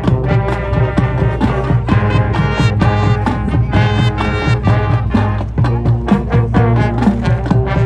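High school marching band playing, brass and drums together, in a swing style.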